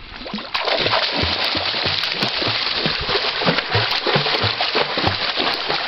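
Water splashing as a child floating on her back in a backyard pool kicks her legs, starting about half a second in and going on in a continuous run of splashes with about three kicks a second.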